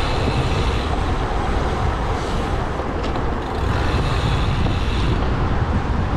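Steady wind rumble on the microphone with tyre and road noise from riding a bicycle.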